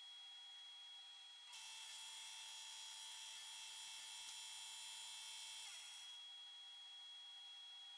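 A power saw running with a steady high whine as it cuts wood for a half lap joint. The cutting gets louder about a second and a half in and eases off abruptly about six seconds in.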